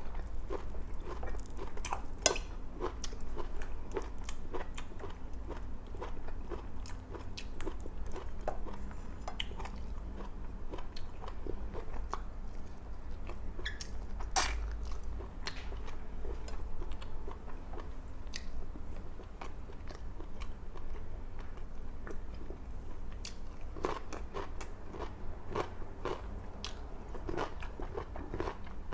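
Close-miked mukbang eating sounds: a person chewing and biting through a meal of grilled milkfish, rice and raw vegetable salad, with frequent small wet clicks and crunches and one sharper click about halfway through.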